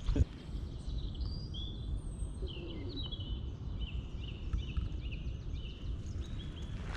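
Woodland birds chirping and singing, a run of short high notes, over a steady low rumble of outdoor background noise.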